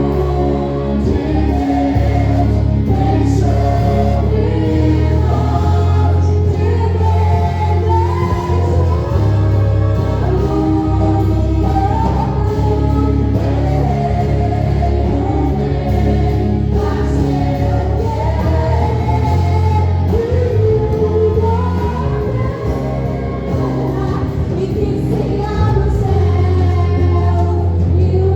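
Gospel praise music: a group of voices singing a melody over a band with sustained bass notes.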